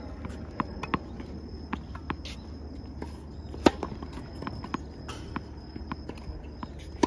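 A tennis ball struck by a racket on a serve, one sharp pop about halfway through, amid lighter scattered taps of balls bouncing on a hard court. A faint steady high-pitched drone runs underneath.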